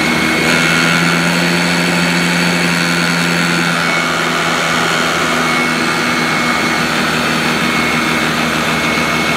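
Royal 18-inch heavy-duty commercial upright vacuum cleaner running steadily on carpet: a loud, even motor whine with a steady high tone over a low hum.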